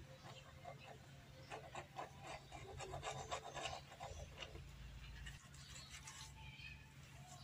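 The bit of a small cordless pen drill scraping grime out of a recess in a plastic chair: irregular scratching strokes, loudest about three seconds in, that stop after about four and a half seconds.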